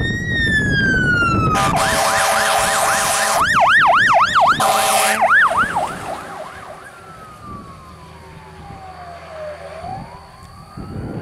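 Pierce fire engine responding with its siren: a wail that breaks into a fast yelp with two long horn blasts over it about two and five seconds in, then goes back to a slow wail that grows fainter as the truck drives away.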